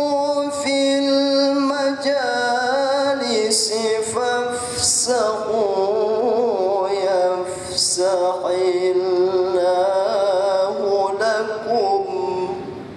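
A man reciting the Quran in the melodic tilawah style, holding long notes ornamented with rapid wavering turns that glide up and down in pitch. The phrase trails off near the end.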